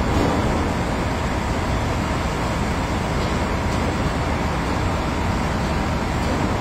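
Steady city traffic noise: a continuous low rumble of street traffic with no distinct events standing out.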